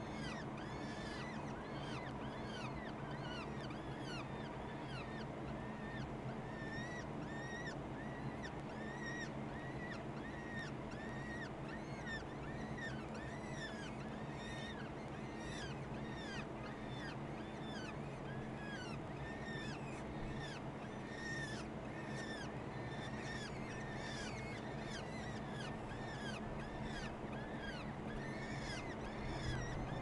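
Downy peregrine falcon chicks begging while being fed: a dense run of short, high, arching cheeps, several a second, over a steady low hum.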